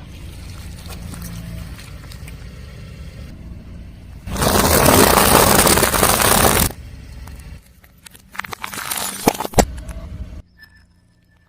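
Car tyre rolling over and crushing objects: a low engine rumble, then a loud crunching noise lasting about two seconds, then a run of crackling snaps, with a brief drop to near silence near the end.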